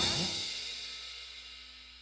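Background music ending: a cymbal-like ringing tail fades steadily away to silence.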